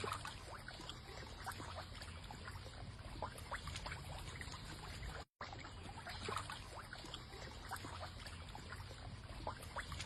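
Water trickling and lapping, with many small scattered splashes and drips; the sound cuts out for an instant about five seconds in.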